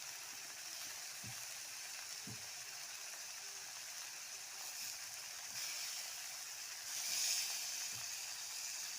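Small fish sizzling as they fry in hot oil in a pan, a steady crackling hiss that swells louder about seven seconds in.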